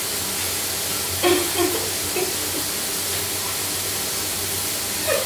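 Shower running behind the curtain: a steady hiss of water spray. A few brief, faint vocal sounds come over it about a second in.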